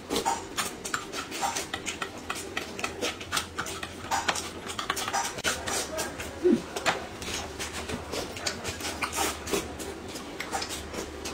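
Close-up eating sounds: irregular crunching and chewing of food, with small clinks of a spoon against a cup or dish.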